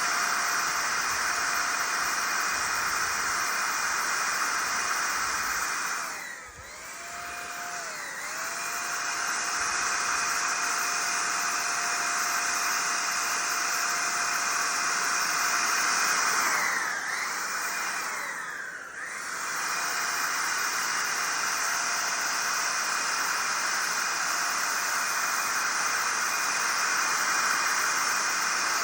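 Spray gun laying on clear coat: a steady rush of air with a motor-like whine. It drops off twice, about six seconds in and again past sixteen seconds, and the whine slides down and back up each time before the steady spraying resumes.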